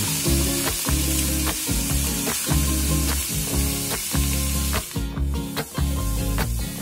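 Food frying in hot oil in a pan, giving a steady sizzle that thins briefly about five seconds in, over background music with a steady beat.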